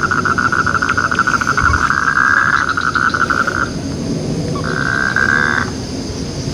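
Frogs calling in long, rapid pulsed trills. One trill stops about three and a half seconds in, and a shorter one follows a second later. Faint steady cricket chirping runs high above them.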